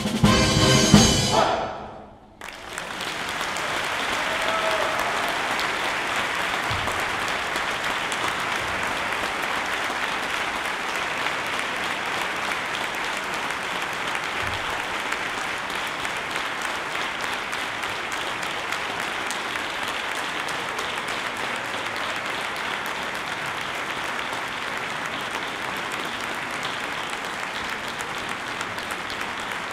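A wind orchestra's final loud chords with drums cut off about two seconds in. A brief hush follows, then the audience breaks into steady applause that keeps going.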